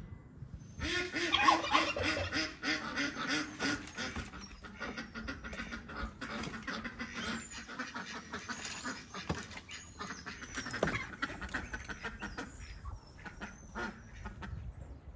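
Domestic ducks quacking: a fast run of repeated quacks starting about a second in, then scattered single quacks.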